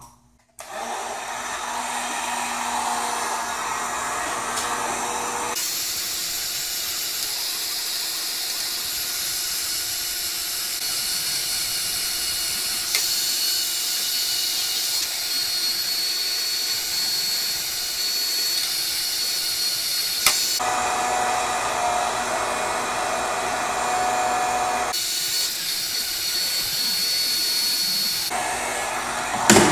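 Electric heat gun running steadily, its fan blowing hot air along PVC conduit to soften it for bending. Its tone shifts abruptly a few times.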